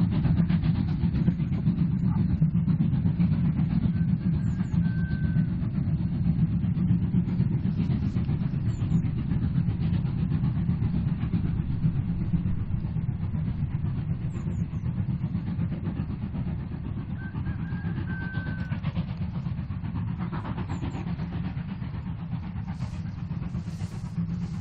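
Class 01 steam locomotive train running steadily, a dense low rumble that slowly fades. A few short high chirps sound above it.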